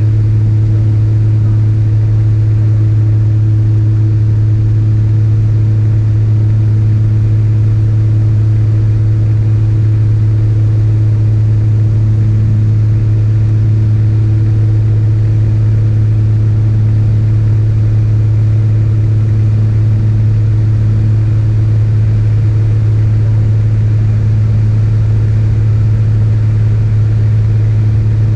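Engine and propeller of a single-engine piston light aircraft in steady cruise, heard inside the cabin: a loud, unchanging drone with a strong low hum.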